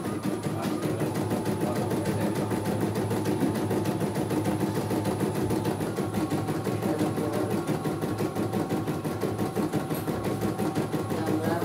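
CNY E900 computerized embroidery machine stitching a design: a rapid, steady clatter of needle strokes over the hum of its motor, with the hoop being moved along as it sews.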